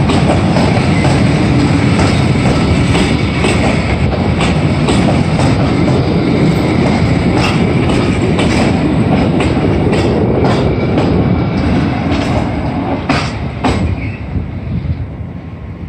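Passenger coaches rolling past at speed, the wheels clattering over rail joints and points. The noise starts to fade a couple of seconds before the end, as the last coach goes by.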